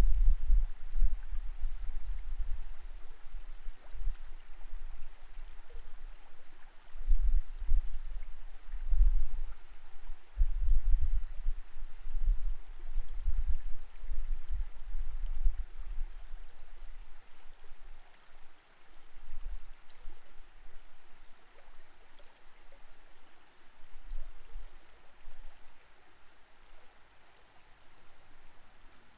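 Creek water heard from an underwater camera: a muffled, steady flow with irregular low rumbling surges that grow weaker over the second half.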